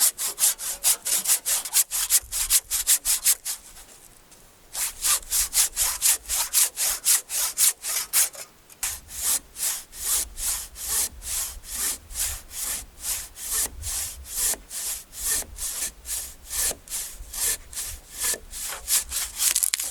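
Fiskars handsaw cutting through a log in quick rhythmic back-and-forth strokes, about three a second, with a brief pause about four seconds in before the sawing picks up again.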